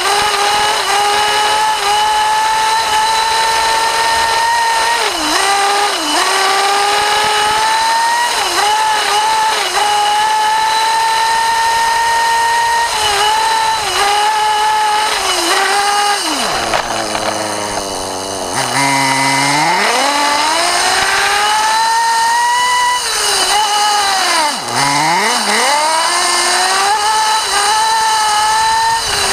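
Nitro RC buggy's small two-stroke glow engine, heard close up from the onboard camera, running at high revs with a high-pitched whine. The pitch dips each time the throttle is lifted, with a longer drop toward idle about halfway through before it revs back up.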